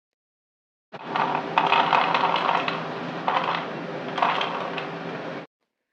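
Crisp deep-fried wheat-flour snack pieces clattering as they are tipped into a dish, a dense run of small hard clicks with a few louder surges, stopping abruptly.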